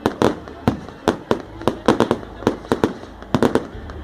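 A rapid, irregular series of sharp cracking bangs, about three a second, some coming in quick pairs.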